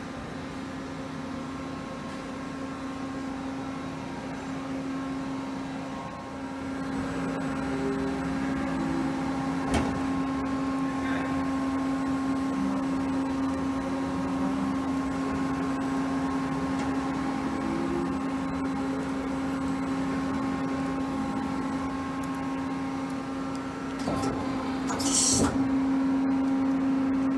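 Mori Seiki SL-35 CNC lathe running with a steady mechanical hum that gets a little louder about six seconds in. There is a single sharp click about ten seconds in and two short hissing bursts near the end.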